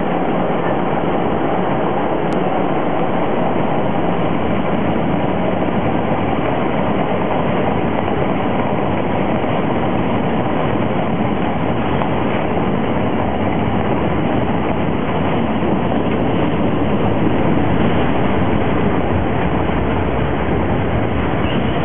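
Siemens O&K electric subway car running through a tunnel, heard from inside the car: a steady rumble and rattle of wheels on rail. The noise swells a little near the end as the car runs into a station.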